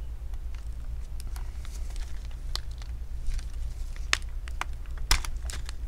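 Small plastic clicks and scrapes as a plastic pry tool works the battery cable's connector out of its socket on a Gigabyte AERO 15 laptop's motherboard, with a few sharper clicks in the second half.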